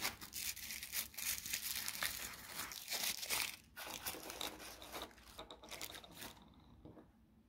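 Tissue paper crinkling as a small item is unwrapped from it by hand, in two spells of about three and two seconds, dying down near the end.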